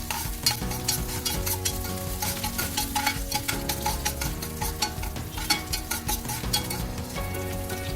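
Chopped garlic and green chillies frying in hot oil, with a constant crackle of sharp pops. A spatula stirs them around the pan.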